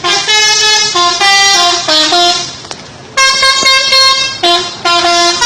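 Telolet horn of a Garuda Mas bus, loud, playing a tune of quick stepped notes. It plays in two phrases with a short break about two and a half seconds in.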